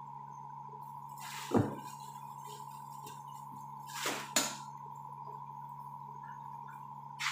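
Things being handled on a table over a steady electrical hum. There is a sharp knock about a second and a half in, and a brief double rustle-and-clatter around four seconds, as a plastic bag is grabbed.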